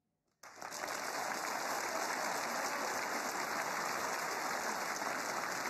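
Snooker audience applauding steadily, breaking out about half a second in, in appreciation of a century break.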